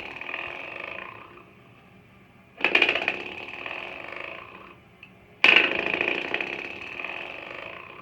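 Coiled-spring door stopper flicked and left to vibrate: a loud buzzing rattle that starts sharply and dies away over about two seconds, heard twice, with the tail of an earlier flick fading at the start. It sounds like a motorcycle.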